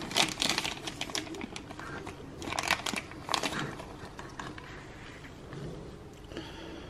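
Thin clear plastic bag crinkling and crackling as a folding knife is unwrapped from it. The crackles come thick and fast for the first three seconds or so, then die down.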